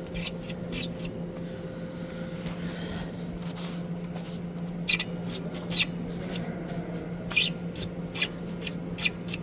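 Belt tensioner on a DAF truck engine squeaking in short, sharp chirps as its arm is worked back and forth: a few near the start, then repeated runs of squeaks from about halfway. The squeak comes from the tensioner's own mechanism and spring, not its rollers, which the mechanic takes for the source of the engine-bay squeak.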